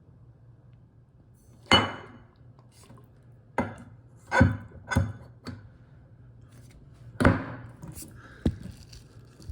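Hard parts and hand tools being handled at a kitchen faucet: about eight sharp clinks and knocks at irregular intervals, as metal and plastic pieces are set down or knocked against the sink and fittings.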